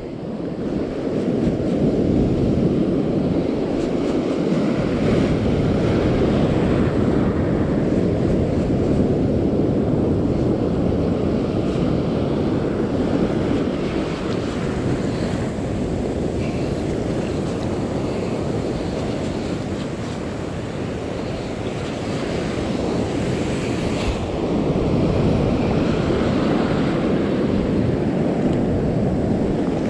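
Ocean surf breaking and washing in, under a steady rumble of wind on the microphone.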